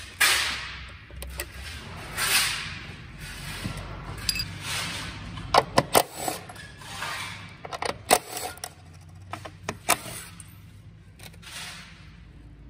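Hand work on an electric-car battery pack: rustling swells and a scatter of sharp metallic clicks and clinks from gloved hands and a tool on the pack's wiring and fasteners, the clicks bunched about halfway through and again a little later.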